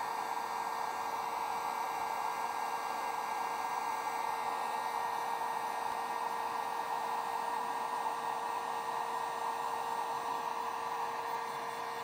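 Heat gun blowing steadily, a constant rush of air with a steady motor hum, as it shrinks heat-shrink wire connectors to seal them.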